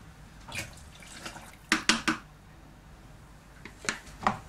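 Cooking liquid poured into a Thermomix mixing bowl, followed by sharp clinks and knocks of kitchenware being handled: two loud knocks near the middle and two more near the end.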